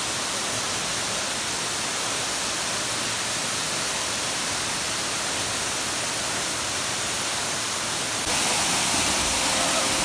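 Waterfall plunging into a pool: a steady, even rush of falling water that steps up louder about eight seconds in.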